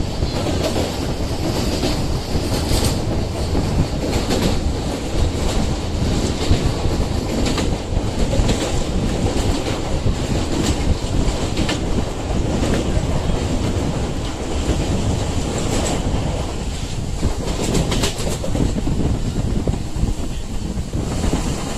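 MEMU electric commuter train running at speed, heard from inside a coach at the window. The steel wheels make a steady rumble on the track, with irregular sharp clacks over the rails.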